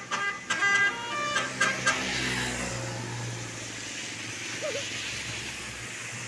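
A bus's telolet musical horn playing a quick run of short notes for about two seconds. The bus then goes by: a rush of engine and tyre noise with a low rumble swells and slowly fades.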